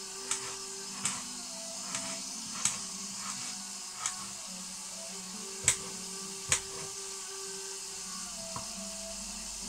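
Kitchen knife chopping potato on a plastic cutting board, sharp taps about once a second at an uneven pace, over the steady sizzle of beef mince frying in a pan.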